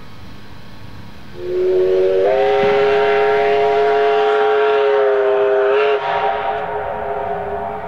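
An Ab-class steam locomotive's whistle sounding one long blast of several tones together. It starts about a second and a half in, lifts in pitch shortly after, sags slightly near six seconds, then drops in level and carries on more quietly.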